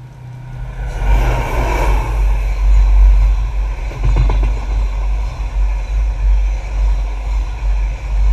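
Tank-wagon freight train passing right beside the rails: the diesel locomotive's engine swells and goes by about a second in. The wagons follow with a steady deep rumble and the clatter of their wheels on the rails.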